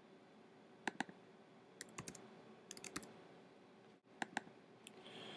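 Faint computer keyboard typing: short clusters of a few keystrokes with pauses between them, about once a second.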